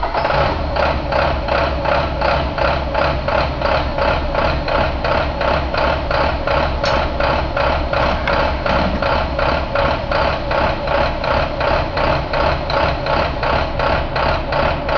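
International MaxxForce DT inline-six diesel engine running steadily on a test stand, with a regular pulsing beat of about three a second.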